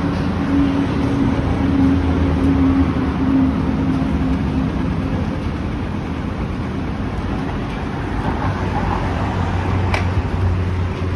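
Steady vehicle and traffic noise with a low engine hum, and a single click about ten seconds in.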